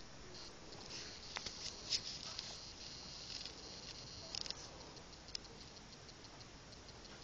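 Small magnetic balls clicking against each other as they are handled and snapped together: a scatter of light, irregular clicks, most of them in the first half.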